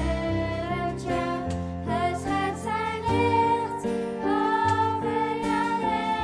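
Children singing a worship song into microphones, accompanied by acoustic guitar and flute, with a long held note in the second half.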